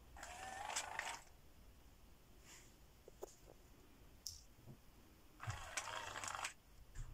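FurReal Friends Koala Luv Cub animatronic toy running: two short bursts of sound, each about a second long, one near the start and one about five and a half seconds in, with a few faint clicks between as its arms move.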